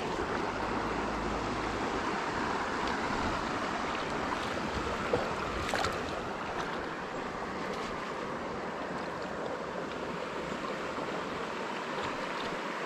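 Steady rush of a flowing river. About five to six seconds in there is brief splashing as a hooked trout breaks the surface.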